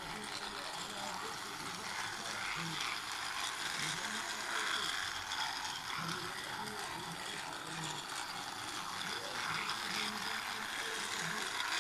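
Toy train's small electric motor and plastic gears whirring steadily with a ratcheting rattle as it runs around a plastic track.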